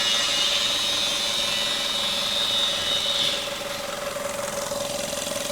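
Skoda petrol engine idling steadily under the open bonnet, its throttle body logging a position-sensor fault. A high steady whine runs over it and stops about three seconds in.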